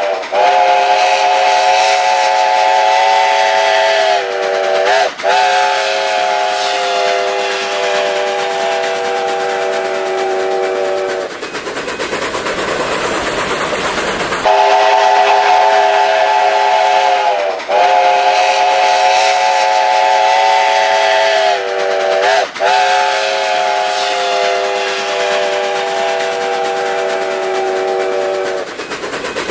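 Steam locomotive whistle blowing two long blasts, several notes sounding together as a chord, each blast wavering briefly a couple of times. Between them, about three seconds of steam hiss and the train running.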